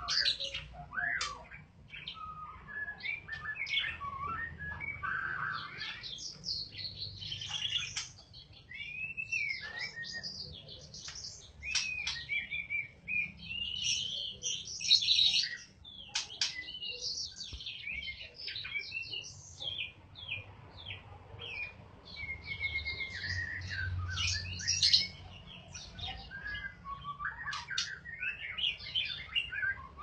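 White-rumped shama (murai batu) singing a long, varied song of whistles, sliding notes and rapid chirping phrases, with short pauses between phrases.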